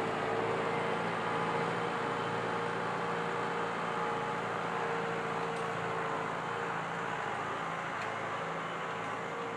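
Farm tractor's diesel engine running steadily under load as it drives off dragging logs on a rear-mounted log winch; a steady hum that fades slightly toward the end.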